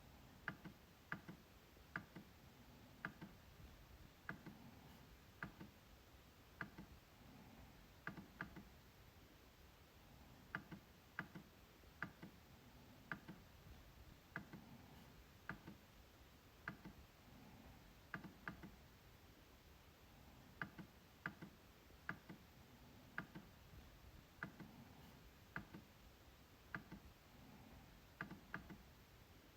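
MacBook trackpad being clicked at an uneven pace, about one to two sharp clicks a second, some coming in quick pairs like double-clicks.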